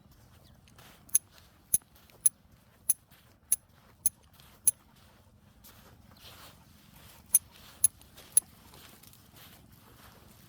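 Sharp, high-ringing metallic clicks in a walking rhythm, seven about every half second and then three more near the end, over faint rustling of steps.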